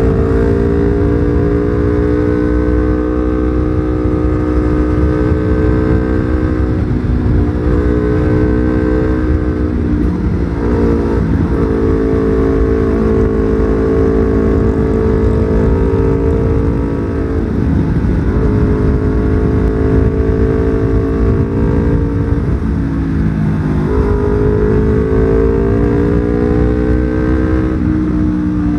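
Yamaha R25's 250 cc parallel-twin engine running under way at steady, slowly climbing revs, with several brief dips in revs about every few seconds, over a dense low rumble.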